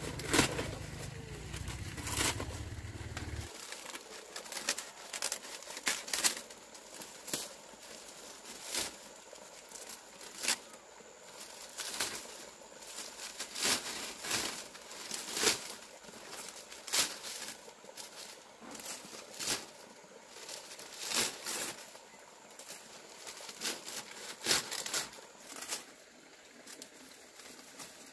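Dry thatching leaves rustling and crackling as they are pulled down and laid onto a roof, in short irregular bursts every second or so.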